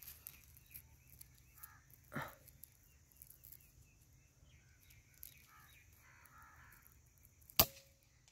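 A single sharp shot from a QS Air Arms Mk3 air rifle, about seven and a half seconds in, after a quiet stretch with faint chirping and a softer knock about two seconds in.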